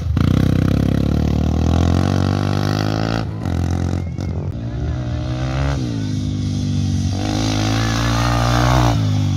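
Dirt bike engines accelerating hard, the pitch climbing as the throttle is opened, heard in several short takes that cut abruptly one into the next.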